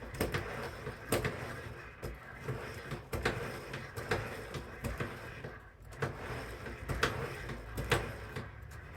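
Irregular clicks and knocks of tools and metal parts being handled during hands-on repair work on a snowblower, over a low background rumble.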